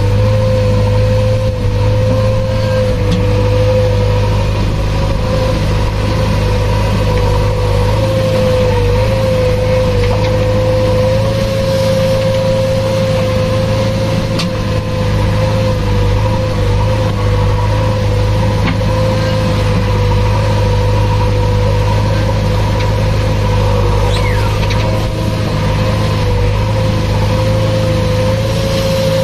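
JCB 3DX backhoe loader's diesel engine running steadily under hydraulic working load, heard from inside the cab as the backhoe arm is worked, with a steady whine over the low engine rumble.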